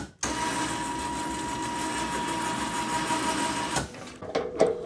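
Kimpex 3,500 lb electric ATV winch paying out its synthetic rope, a steady motor whine that starts just after the beginning and stops abruptly after about three and a half seconds. A few short knocks follow.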